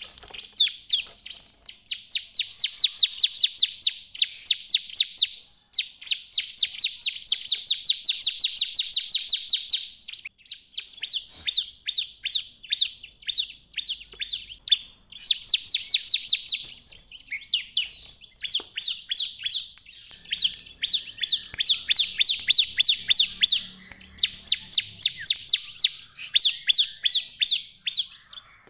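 Bar-winged prinia (ciblek) singing persistently: long runs of fast, sharp repeated chirps, about eight a second, broken by brief pauses.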